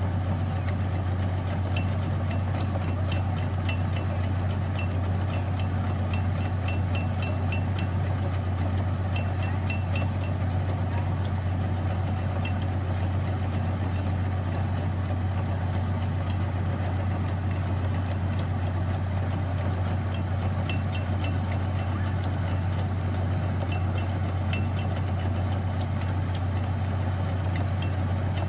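Rice combine harvester running steadily with its unloading auger turning, pouring paddy grain into a lorry: a constant low drone with faint scattered ticking.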